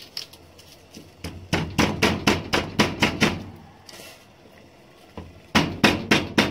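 Garlic cloves being struck hard to crush them on the stove, a run of about eight quick knocks at roughly four a second. After a pause, a second run of knocks comes near the end.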